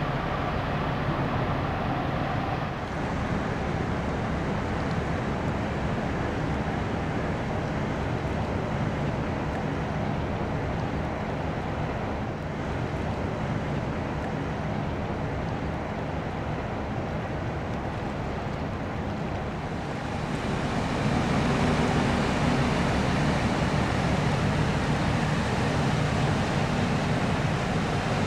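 Steady low rumble of tugboat engines mixed with wind rushing on the microphone, growing louder about twenty seconds in.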